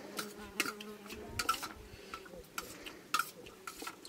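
Spoons scraping and clinking against metal plates as two people eat, in irregular sharp clicks and scrapes a few times a second.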